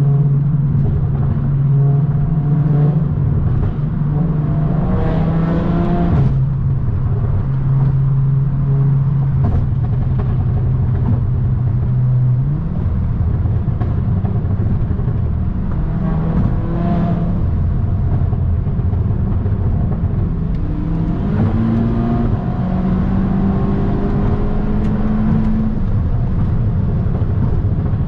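2017 Audi S3's turbocharged 2.0-litre four-cylinder engine and exhaust while driving: a steady low drone, with the engine note rising several times as the car accelerates.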